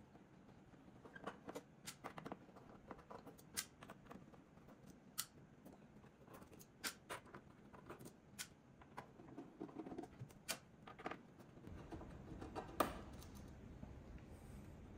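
A hand screwdriver backs small screws out of the side of an Eversolo DMP-A8's metal case, making faint, irregular clicks and ticks. The sharpest click comes near the end.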